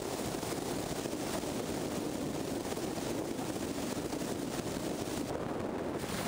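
Steady wind rush over a roof-mounted camera on a Dodge Charger R/T at highway speed, mixed with road noise; the hiss dulls somewhat near the end.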